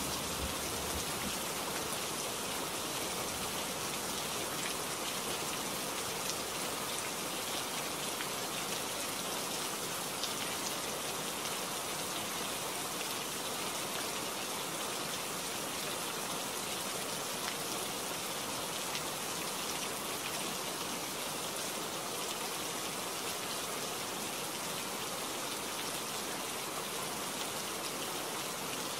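Steady rainfall: an even hiss with scattered individual drops ticking.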